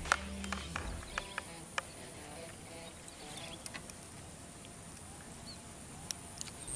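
A run of sharp clicks and taps close to the microphone from an angler handling his fishing tackle, the first the loudest and most of them in the first two seconds, with a few fainter ones later. Background music fades out about a second in.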